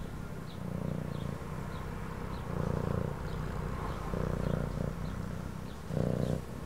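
Cat purring, a steady low buzz that swells and eases with each breath, about one cycle a second.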